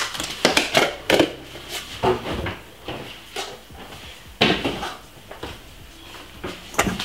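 Knocks and clatters of kitchen items being handled out of view, about fifteen in all, loudest in the first second and about four and a half seconds in.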